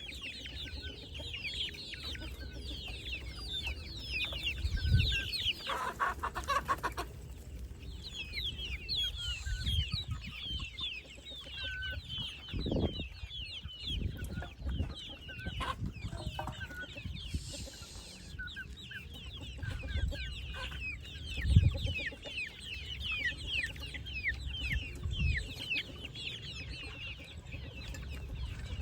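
A flock of chickens calling nonstop with many overlapping short, high-pitched cheeps and clucks, as hungry birds do around feeding. Occasional low thumps sound in between.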